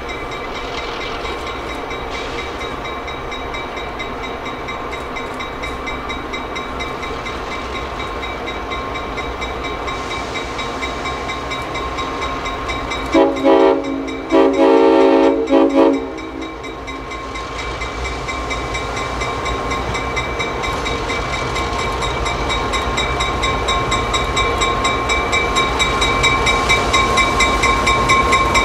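Clinchfield EMD F7 diesel locomotive No. 800 approaching with its bell ringing steadily, growing louder as it nears, over a low rumble. About thirteen seconds in its air horn sounds two short blasts and a longer one.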